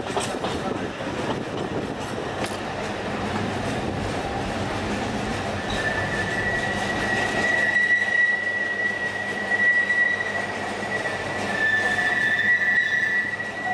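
Alishan Forest Railway narrow-gauge train running with a steady rumble; about six seconds in, its wheels start a high, steady squeal against the rails that lasts to the end.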